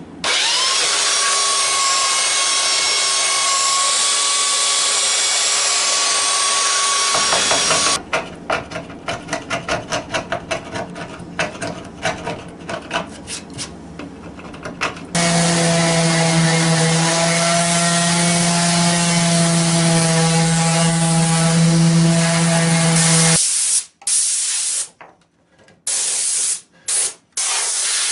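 Dried glue being cleaned off an old pine board. A long steady hiss comes first, then quick rhythmic scraping strokes of a small hand tool on the wood, then a steady machine hum with a low drone for several seconds, and near the end short separate blasts of compressed air from an air-hose nozzle.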